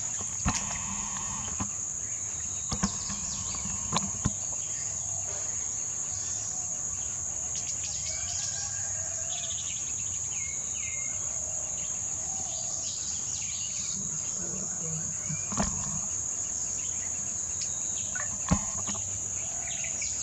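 Steady high-pitched insect chorus, with a few short sharp knocks scattered through it, the loudest near the end.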